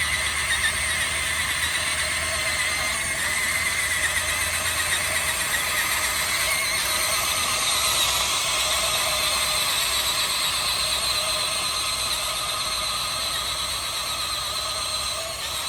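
Electric motors and plastic gearboxes of a Huina RC excavator running with a steady, high-pitched whine made of several wavering tones.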